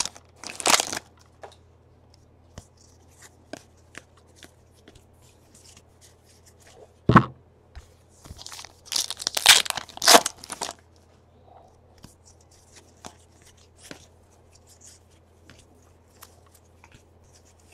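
Plastic Donruss baseball card pack wrappers crinkling and being torn open, with cards handled and shuffled between. The loudest tearing comes in a cluster about nine to eleven seconds in, and a single thump comes about seven seconds in.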